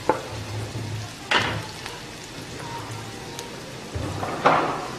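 Diced vegetables (carrots, green beans, peppers) sizzling in hot oil in a nonstick frying pan, with a few sharp scrapes of a spatula against the pan: one at the start, a louder one about a second in, and another near the end.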